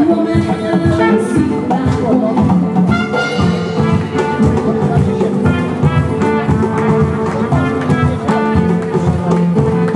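Live band playing an upbeat acoustic number: acoustic guitar and hand drums keep a steady beat while a trumpet carries held melody notes.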